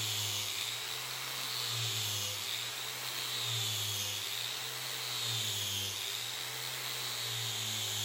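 Angle grinder running with a brush disc pressed against a softwood board, brushing the surface to raise its grain. The motor whine, with a scrubbing hiss, dips and rises in pitch as the disc is swept back and forth under changing load.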